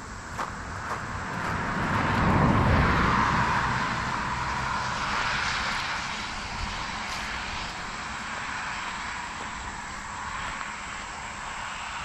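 An engine passing by, swelling to its loudest about two and a half seconds in, then fading slowly into a faint lingering hum. A few footsteps crunch on gravel at the start.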